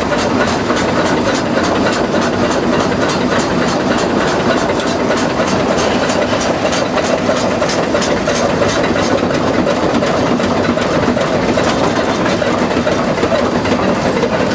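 Shay geared steam locomotive running, heard from inside its cab: a steady roar with a rapid, even beat of about five strokes a second.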